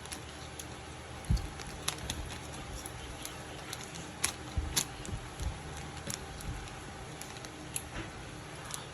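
Handling noise: scattered light clicks and taps over a steady low background, with a low thump about a second and a half in.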